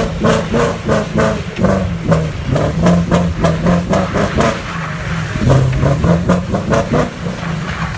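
A car engine revved up and held high, with a fast rhythmic chatter over it, about three to four pulses a second.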